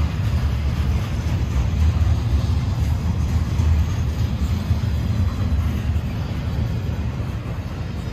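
Freight train cars rolling past, a steady low rumble of wheels on rail that eases off slightly near the end.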